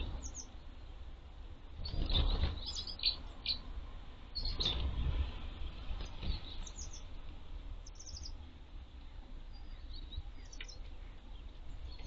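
Tits calling: short high chirps and call notes repeated in scattered bursts, with two louder bursts of noise about two and four and a half seconds in.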